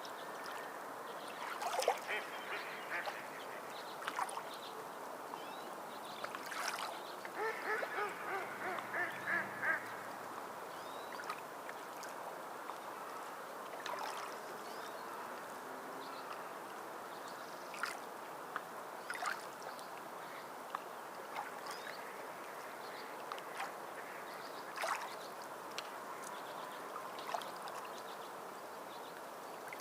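Birds calling over a steady wash of water noise. A quick run of quacking calls comes about seven to ten seconds in, with scattered short splashes or clicks.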